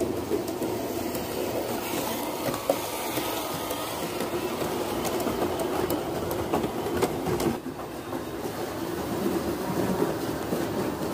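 Gauge 1 model train, a locomotive pulling a coach, running along the track: a steady motor hum with the wheels clicking over the rails. The sound dips briefly about two-thirds of the way through, then carries on.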